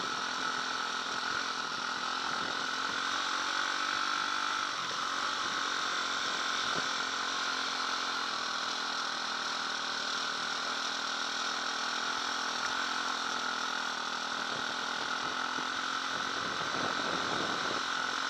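KTM 250 dirt bike's engine running steadily while riding along a gravel track, with little change in revs.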